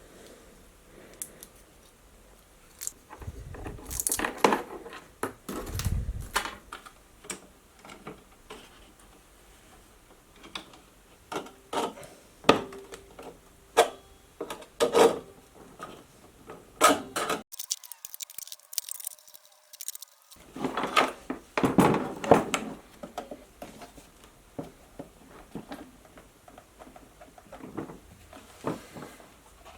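Irregular clicks, knocks and rattles of a portable metal-cutting bandsaw and its parts being handled and set up, with a couple of dull thuds in the first few seconds.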